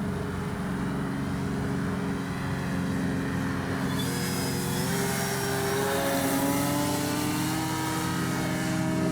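Electric brushless outrunner motor and 13-inch propeller of a radio-controlled Ryan STA model plane in flight, a steady whine made of several tones. About four seconds in the tones start gliding up and down in pitch and a rushing noise joins, as the plane passes or the throttle changes.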